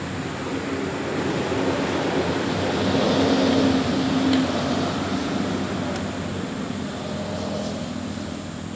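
A motor vehicle passing by: engine hum and road noise swell to a peak about three to four seconds in, then fade away.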